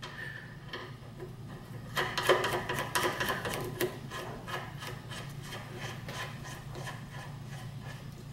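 Small metal clicks and scraping of a nut being threaded and snugged by hand onto the end of a mill's X-axis ball screw, busiest about two to four seconds in and lighter ticking after. A low steady hum runs underneath.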